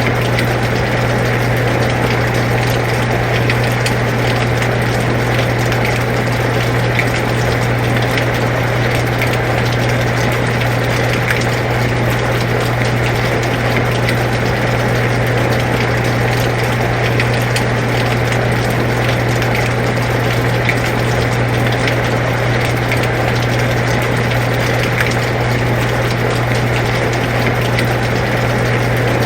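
Air conditioner running with a steady low hum, over the even hiss of rain falling with scattered drop ticks.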